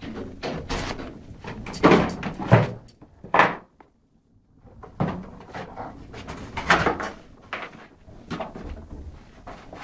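Cardboard box crunching and ripping in a setter's jaws as it bites and tears at it, in irregular bursts with a brief silent break about four seconds in.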